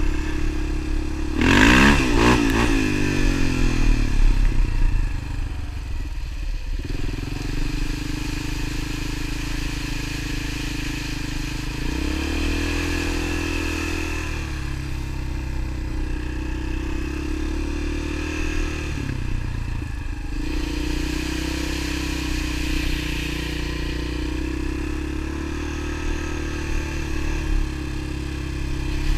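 A vehicle engine running under way, revving up and back down about two seconds in, with brief dips in its note around twelve and nineteen seconds.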